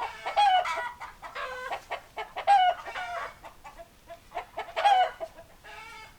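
Chickens clucking and calling, with loud falling-pitched squawks about every two seconds and short clucks in between.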